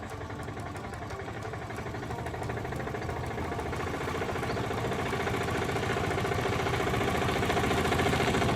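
An engine running at a steady idle with a rapid, even chugging. It grows gradually louder, then cuts off abruptly at the end.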